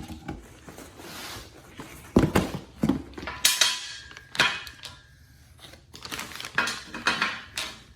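Metal fabrication-table stops clinking and clattering as they are handled and set into the holes of a steel fab table, in a series of sharp knocks with a brief metallic ring about four and a half seconds in.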